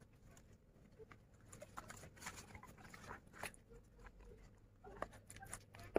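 Soft, irregular clicks and rustles of hands at work: a banana leaf being handled and a metal spoon scooping seasoned catfish pieces out of a plastic bowl.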